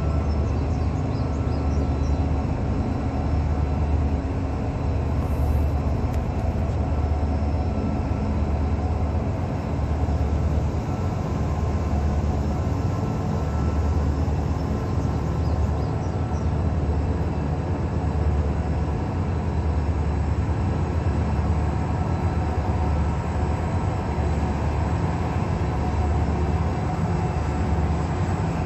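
Towboat diesel engines droning steadily, a deep, low rumble that swells and fades every second or two.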